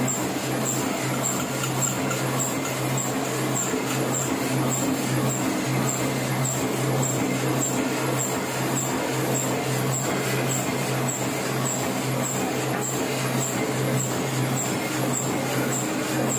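Heidelberg offset printing press running steadily, a constant mechanical hum with a fast, even high-pitched ticking from its cycling mechanism.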